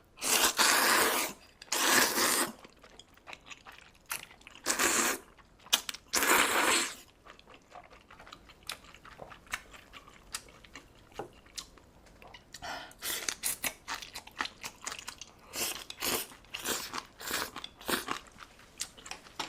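Close-miked eating sounds: four loud, drawn-out slurps in the first seven seconds, then a run of quick, crunchy chewing clicks.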